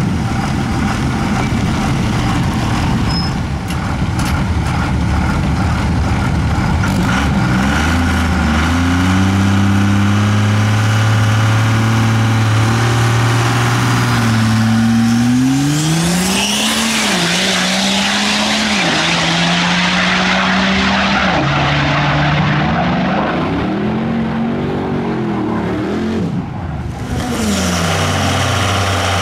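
A 12-valve Cummins inline-six diesel with compound turbochargers, swapped into a Ford F100, runs loudly: a dense rough rumble at first, then a steady idle, then it is revved up and down several times, with a rising turbo whistle on the bigger revs. Near the end it drops briefly and rises again in another rev.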